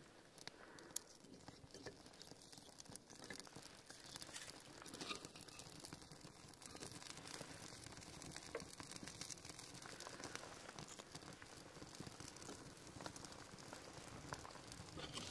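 Small wood fire of split kindling and birch crackling faintly, with scattered small pops and clicks over a soft hiss. A few light knocks come as pieces of wood are laid on.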